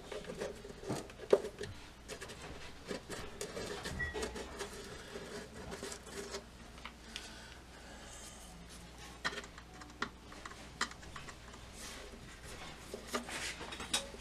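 A screwdriver working small screws out of an old radio cabinet's front panel, with one of the screws proving stubborn. The sound is scattered light clicks and scrapes of metal and handling, with one sharper click about a second in.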